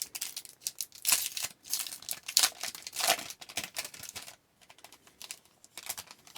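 A trading-card pack wrapper being crinkled and torn open, loudest from about a second in until past four seconds. Lighter rustles and clicks follow, as the cards are handled.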